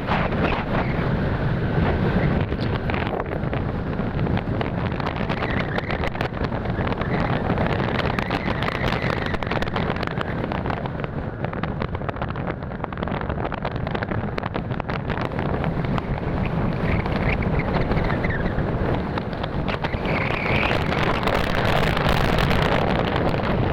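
Wind buffeting the microphone of a camera on a moving motorcycle, with the motorcycle's engine and road noise running underneath.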